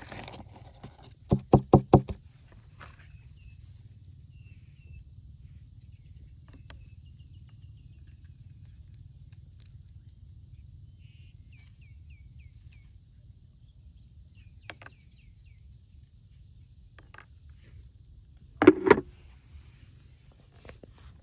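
A quick run of four or five hollow knocks on a plastic tray about a second and a half in, as it is tapped to shake the insects out, and a second short burst of knocks near the end.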